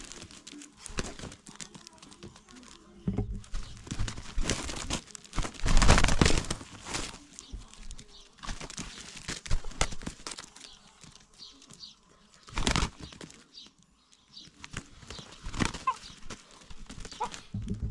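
Two roosters fighting: wings flapping and feet scuffling on dry dirt in irregular bursts, with the longest and loudest flurry about five seconds in and short sharp ones later.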